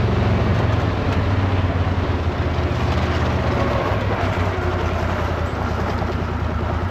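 Side-by-side UTV engine running steadily, a continuous low drone.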